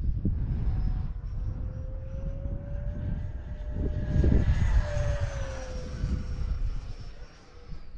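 Electric ducted fan of an E-flite F-15 Eagle RC jet (64 mm impeller) whining overhead, its pitch slowly rising and then falling as it passes, fading near the end. Heavy wind rumble on the microphone runs underneath and is the loudest part.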